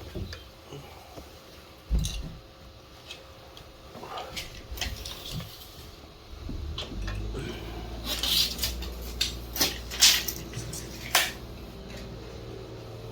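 Scattered knocks, clicks and rustling from insulation and tools being handled during a ceiling repair, with a few sharp louder hits in the second half. A low steady hum comes in about halfway.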